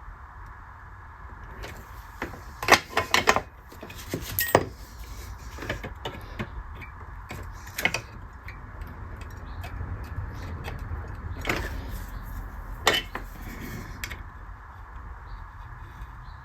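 Metal fret-pulling tools clicking and scraping as a fret is worked out of an old Stratocaster neck's fretboard. The sounds come in several short clusters, the loudest about three seconds in, over a steady low hum.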